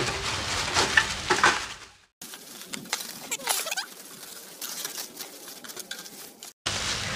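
Clear plastic packaging crinkling and rustling as it is pulled off a stainless-steel grill. About two seconds in the sound cuts out briefly, then goes on thinner and quieter until a second short cut near the end.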